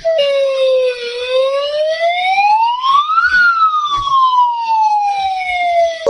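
Warning siren wailing through one slow cycle: the tone dips slightly, rises steadily to a peak a little over three seconds in, then falls slowly back down. It is the signal for people to leave roads and parks and go indoors.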